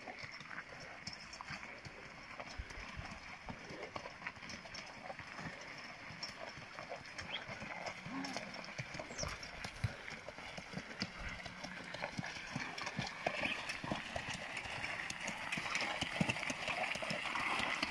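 Hooves of a draft mare clopping on a gravel road as she works in harness pulling a cart, in uneven knocks.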